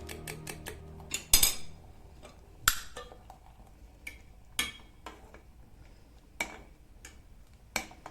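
Dishes and cutlery clinking in the kitchen: a string of separate sharp clinks and knocks, irregularly spaced, the loudest about a second in.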